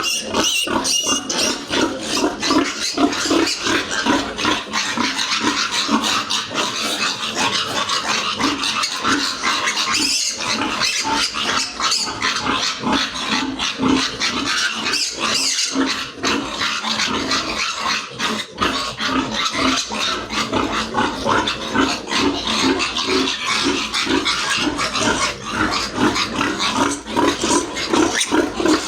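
Piglets squealing loudly and without letup, many short shrill cries overlapping.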